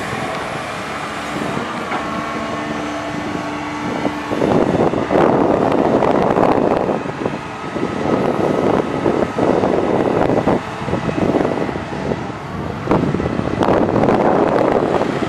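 Caterpillar 320D hydraulic excavator's diesel engine running steadily, then louder and more uneven from about four seconds in as the bucket digs into the pit and the boom lifts the load.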